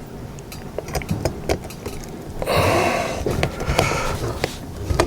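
Light clicks and taps of small screws, a screwdriver and plastic parts being handled, with a louder breathy, rustling noise for about two seconds from halfway in.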